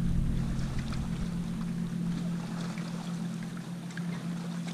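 Bass boat's bow-mounted electric trolling motor running with a steady low hum, with scattered faint ticks over it.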